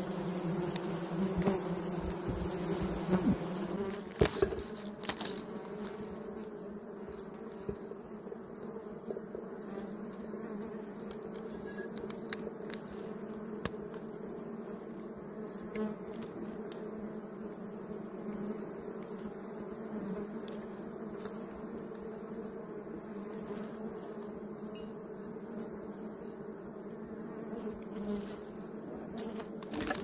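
Disturbed colony of wild honeybees buzzing steadily around their exposed comb as it is handled, with a few sharp taps in the first half.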